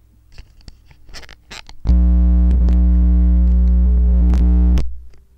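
Loud 60 Hz mains hum buzzing through an electret stick microphone's cable for about three seconds while the cable is handled, cutting off suddenly, with a few light handling clicks before it: a grounding problem that is put down to the cable.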